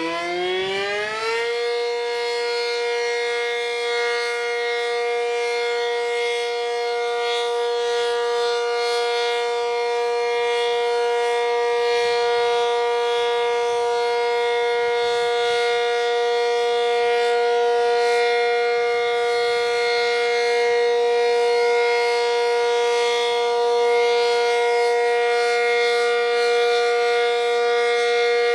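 ASC Cyclone C-125 outdoor warning siren on its Full Alert steady tone: the pitch finishes winding up about a second and a half in, then holds one loud, steady tone. The siren is reverse wired.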